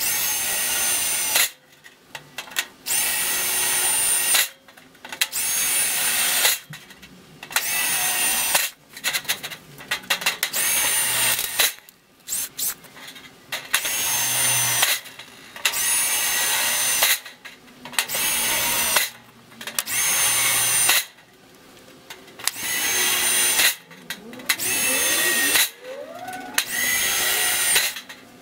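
Cordless drill boring holes through a zinc sheet-metal ridge cap in repeated short bursts, about a dozen, each a second or two long, the motor whining up to speed at the start of each.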